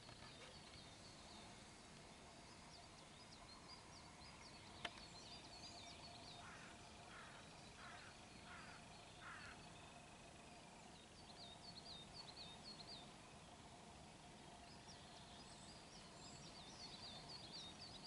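Faint birdsong: songbirds repeating quick, high chirping phrases, with a run of five separate rising notes from another bird near the middle. A single sharp click about five seconds in.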